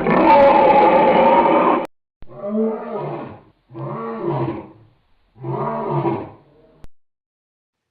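Made-up monster calls for a stegosaurus-like creature, assembled from edited and slowed animal and voice recordings: one long harsh roar, then three shorter pitched calls, each about a second long, that rise and fall in pitch.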